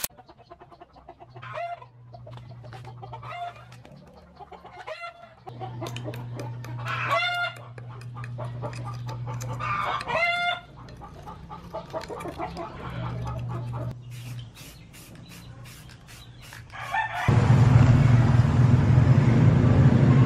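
Chickens calling: several short clucks and crows over light clicking and a low hum that comes and goes. About three seconds before the end a loud steady rumbling noise sets in.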